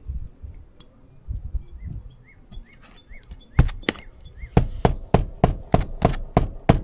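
A quick, even run of sharp knocks, about three a second, starting a little past halfway, after a few scattered softer knocks and some faint short high chirps.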